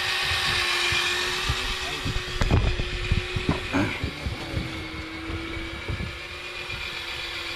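Electric fishing reel's motor whining steadily as it winds line in with a fish on. A cluster of knocks and bumps on the boat comes about a third of the way through.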